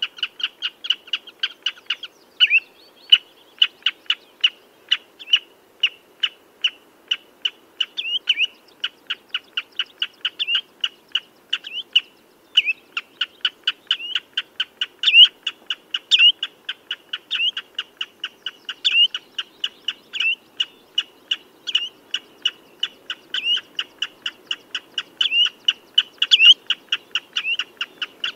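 Common redshank calling: short piping notes repeated rapidly and evenly, about four a second, with a louder slurred note every second or two.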